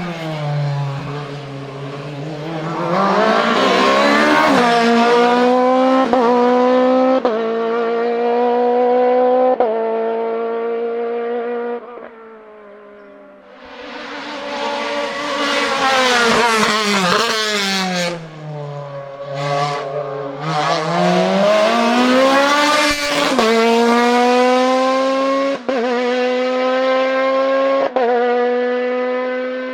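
Two hillclimb race cars pass one after the other at high revs. The first climbs in pitch through several quick upshifts, then fades. The second comes in with its engine pitch falling as it slows, then accelerates hard through three more quick upshifts.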